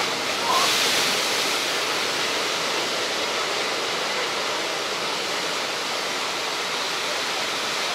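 Heavy surf breaking against a sea wall: a steady rush of white water, with one louder crash of a wave about half a second in.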